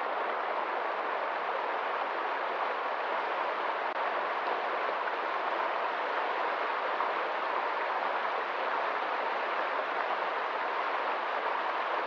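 Fast-flowing stream rushing steadily through small rapids, a continuous even rush of water.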